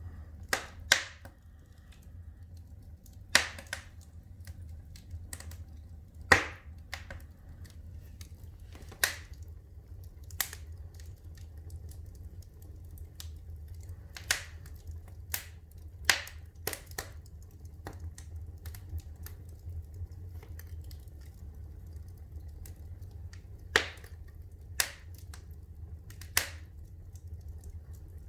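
Fire in a fireplace crackling, with sharp single pops at irregular intervals, a few of them loud, over a low steady background.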